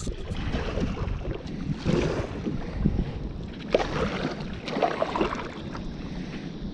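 Water splashing and sloshing around a kayak in irregular surges every second or two, with wind buffeting the microphone.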